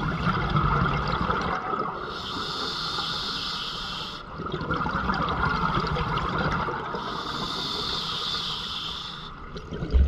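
Scuba diver breathing through an open-circuit regulator underwater: two hissing inhalations of about two seconds each, alternating with the bubbling rush of exhaled air.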